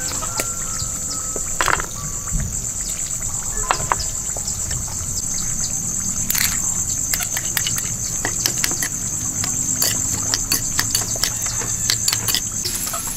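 Insects trilling steadily at a high pitch, with scattered clicks and taps of a spoon stirring chili flakes, cilantro and lime in a ceramic bowl.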